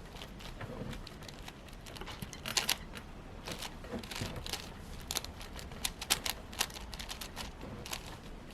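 Plastic layers of a 6x6 Rubik's cube clicking and clacking as they are turned by hand, in irregular runs of quick clicks.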